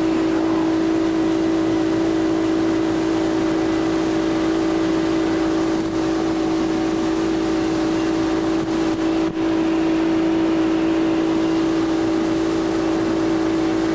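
The engine of a 20-foot Hydrodyne ski boat runs steadily while the boat is underway: a constant, even drone with a steady hiss of wind and water over it. There is a brief dip about nine seconds in.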